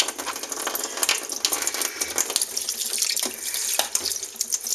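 Running water from a tap: a steady splashing hiss sprinkled with small crackles.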